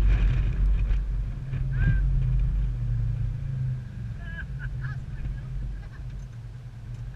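Side-by-side UTV's engine running with a low steady rumble, easing down about halfway through. A few short high chirps sound over it.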